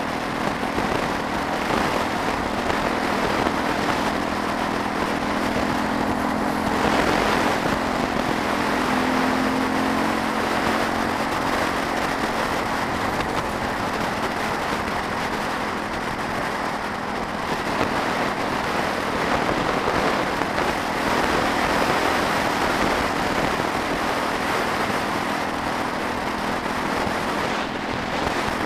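Suzuki DR350SE single-cylinder dual-sport motorcycle engine running steadily at cruising speed, under heavy wind rush over the bike-mounted camera.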